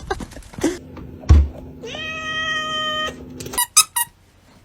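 A cat giving one long, steady meow that cuts off sharply, just after a thump. A few sharp clicks come near the end.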